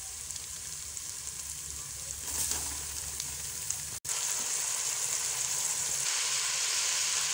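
Sliced onions sizzling as they fry in hot oil in a large pot. After a short break about four seconds in, the sizzle comes back louder, with sliced tomatoes just added on top of the onions.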